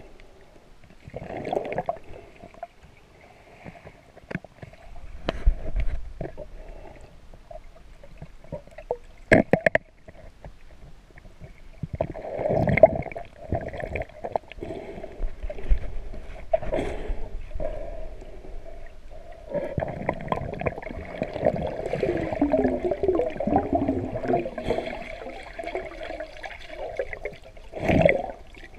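Muffled underwater water noise picked up by a submerged camera: gurgling and sloshing in irregular rushes, with scattered sharp knocks and clicks. A longer, denser stretch of bubbling runs from about two-thirds of the way in.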